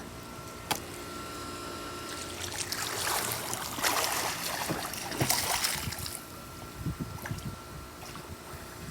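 Swimming-pool water splashing and sloshing, swelling to its loudest from about three to six seconds in, then a few small splashes.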